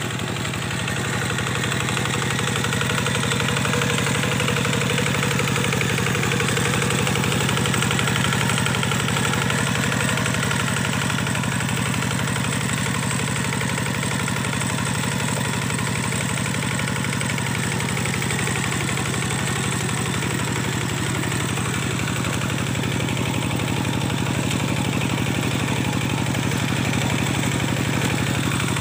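Kubota diesel tractor engine running steadily while harrowing a waterlogged paddy field, with a slight rise and fall in level.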